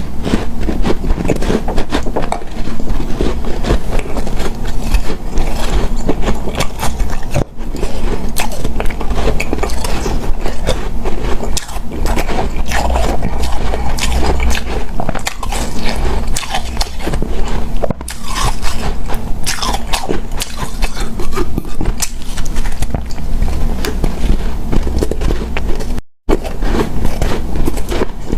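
Close-up biting and crunching of hard, powdery refrozen ice, a dense run of crisp crunches mixed with scraping.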